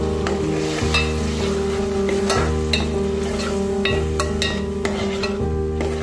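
A spoon stirring and scraping onion-tomato masala frying in an aluminium pot, with a light sizzle and irregular clinks of the spoon against the pot. Background music with long held notes underneath.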